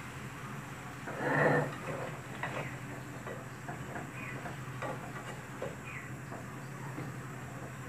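Metal spatula scraping and clinking against a metal karai while stirring sliced bitter gourd and potato. There is a louder scrape about a second in, then scattered lighter taps.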